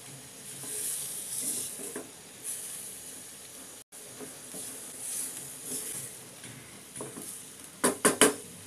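Wooden spatula stirring and scraping vegetable and chicken filling around a frying pan, with a light sizzle of oil and swells about once a second as it is turned. A few sharp knocks near the end are the loudest sounds.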